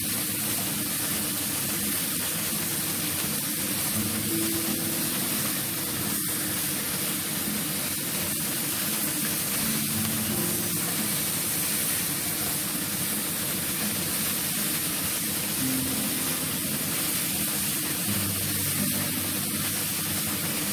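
Food sizzling steadily in a hot frying pan as it is stirred with a wooden spatula.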